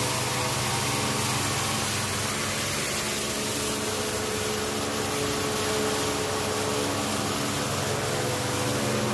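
Steady machine hum with an even hiss over it, unchanging throughout: the ambient drone of an underground subway platform.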